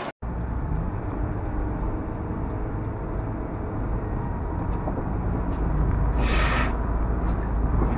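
Steady low road and engine rumble heard from inside a car cruising on a highway, with a short hiss about six seconds in.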